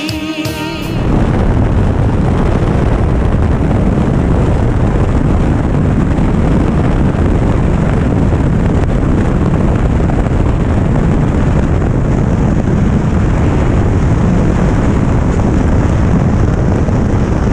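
Loud, steady rush of airflow and engine noise on a camera mounted outside under a Cessna 182 as it passes low over the runway on landing. Background music cuts off about a second in.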